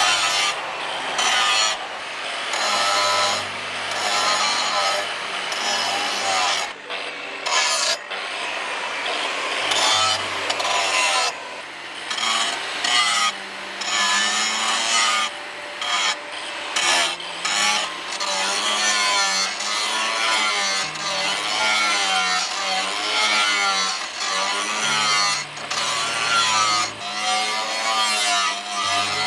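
Steel being worked by hand with a file or rasp-like tool, in repeated scraping strokes with short pauses between runs.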